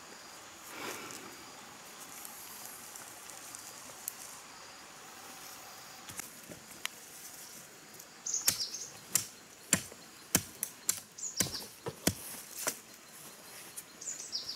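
A run of sharp wooden knocks, about two a second for some five seconds starting a little past halfway, as a wooden stake is worked at ground level. A few short bird chirps come between the knocks.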